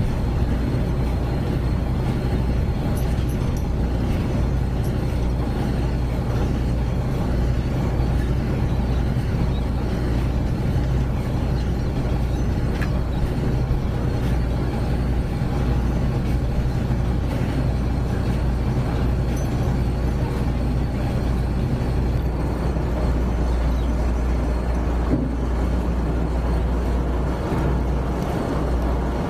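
Heavy diesel engine of a crawler crane running steadily, a low, even drone while it holds and lifts a load of concrete reef structures.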